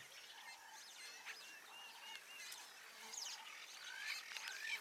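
Birds chirping and whistling, faint, with several birds calling at once. A short run of repeated whistled notes comes about a second in, and rising calls near the end.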